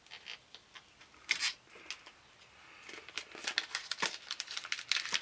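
Contact paper being peeled off Yupo paper and handled, crinkling and crackling. Scattered crackles come first, with a louder one about a second in, then a quicker run of crackles over the last two seconds.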